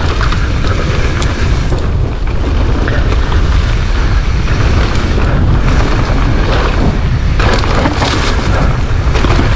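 Mountain bike descending a dirt forest trail at speed: wind buffeting the microphone as a steady low rumble, over tyre noise and the clicks and rattle of the bike, with a louder rush of tyre noise about eight seconds in.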